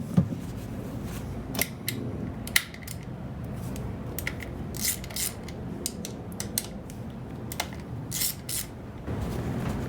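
Ratchet and socket working the small 8 mm bolts of a motorcycle's oil filter cover: irregular metallic clicks and a few short ratcheting runs, with small metal tool clinks.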